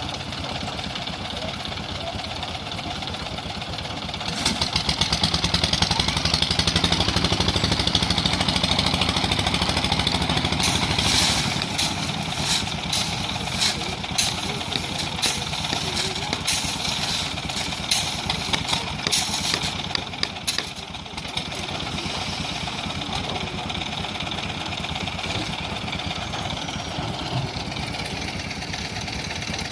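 Concrete mixer machine's engine running steadily, getting louder about four seconds in. From about ten to twenty-one seconds a run of sharp clanks and knocks sounds over the engine.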